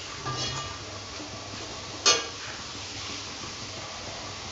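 Diced potato and carrot in masala sizzling steadily in a metal kadai, with one sharp clink of the steel spatula against the pan about two seconds in.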